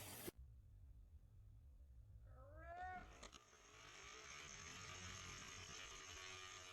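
Near silence, broken by one short, faint, meow-like animal cry about two and a half seconds in that rises and then falls in pitch. A faint steady hiss follows.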